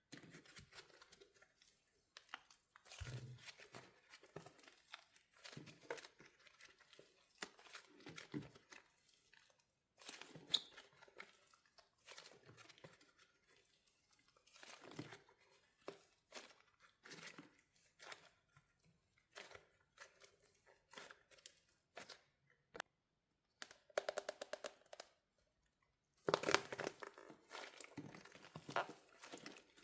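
Wax coating on a soft soap squishy cracking and crunching as it is squeezed by hand, in bursts of fine crackling with short pauses between, the densest crackle near the end.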